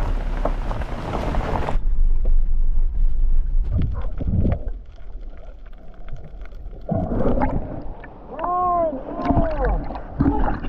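Jeep tyres crunching over a gravel track with wind noise, cut off sharply about two seconds in, then muffled underwater sound with scattered clicks. Near the end comes a series of short rising-and-falling calls.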